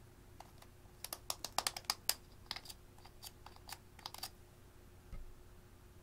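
Thin metal spatula scraping and clicking against the inside of a plastic lipstick tube as the lipstick is dug out: a quick, irregular run of sharp clicks for about three seconds. A soft low thud follows near the end.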